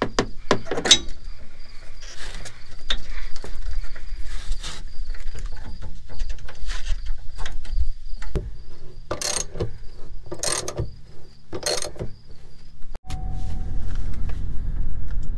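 Scattered metal clicks and knocks as a hand grips and moves a truck's sway bar end link, with three louder scraping bursts a little before the end and a steady high insect trill behind. After a sudden cut near the end, the truck's engine is idling, heard as a low rumble from inside the cab.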